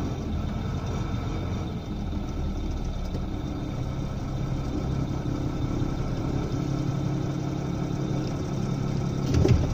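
Vehicle engine running steadily with road noise, heard from inside the cab while driving slowly; the engine note settles into a steady hum about halfway through. A short knock sounds just before the end.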